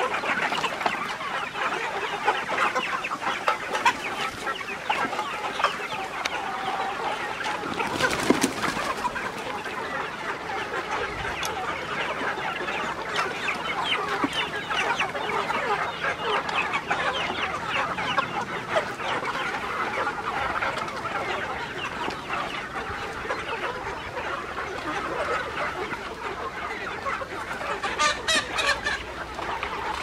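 A large flock of native village chickens clucking continuously while they are being fed. A single sharp knock stands out about a quarter of the way through, and there is a short run of clicks near the end.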